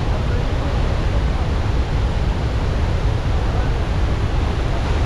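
Steady rush of a large waterfall in monsoon flood.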